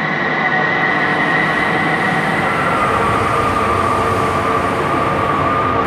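Loud, steady mechanical rumble of a vehicle, with a high whining tone that drops to a lower pitch about three seconds in.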